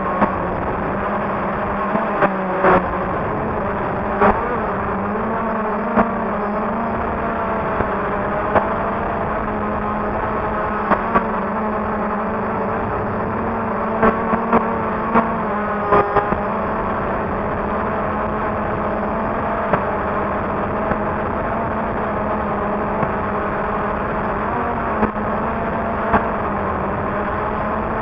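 DJI Phantom quadcopter's electric motors and propellers whirring steadily, heard from the camera mounted on the drone, the pitch wavering up and down as it manoeuvres. Brief sharp clicks come every few seconds.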